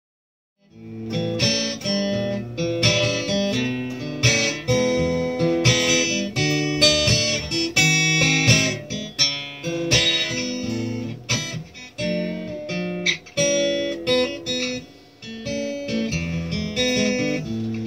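Acoustic guitar strummed in chords, starting about a second in: the instrumental intro before the vocal comes in.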